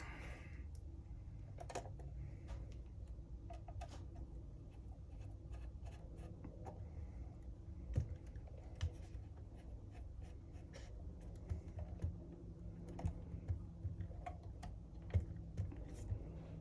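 Scattered small clicks and taps of hands working on plastic model parts, a few sharper clicks in the second half, over a steady low hum.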